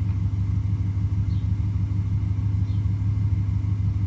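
Lexus GS F's 5.0-litre V8 idling steadily, heard from inside the cabin as a low, even rumble.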